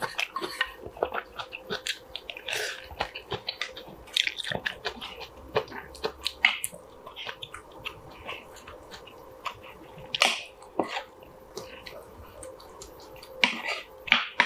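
Close-miked eating sounds: a person chewing kimchi stew and rice, with many short wet smacks and clicks. A wooden spoon knocks against the bowls.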